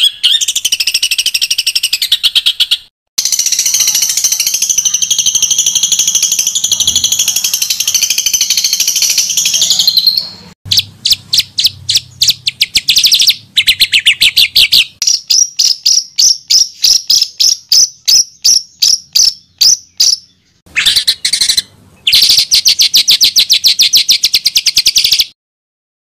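Songbird song in an edited training compilation: fast, dense trills and a long high warbling phrase, then rapid repeated sweeping notes about four a second, and another dense trill, each clip cut off abruptly by a brief silent gap.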